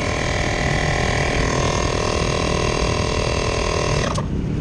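Portable electric tyre inflator, a mini air compressor, running steadily as it pumps up a bicycle tyre, then switched off abruptly with a click near the end.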